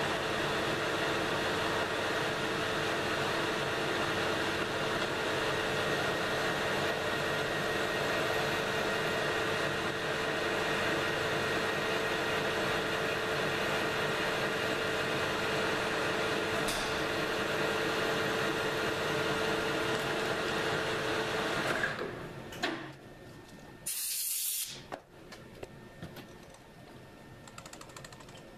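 Metal lathe running steadily with a fixed whine while turning a long slender parallel-clamp screw between centres. It switches off about 22 seconds in and goes quiet. A short loud hiss comes about two seconds later, then a few light clicks.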